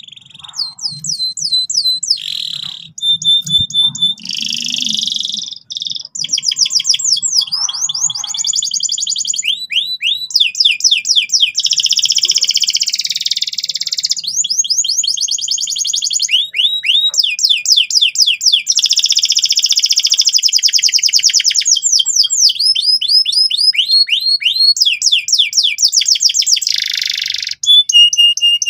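Domestic canary singing loudly and almost without pause: long rolling trills of rapid, repeated sweeping notes alternating with buzzy chattering phrases, with only brief breaks. This is the loud, persistent 'gacor' song used as a tutor for young canaries.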